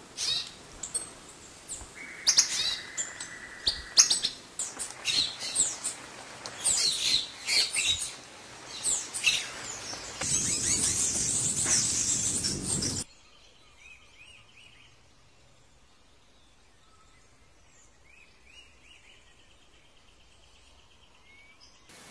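Several wild birds chirping and calling with many short, sharp, quickly gliding notes. From about ten seconds a loud, steady, high hiss joins them, and it cuts off suddenly about three seconds later, leaving faint scattered bird notes and a soft trill.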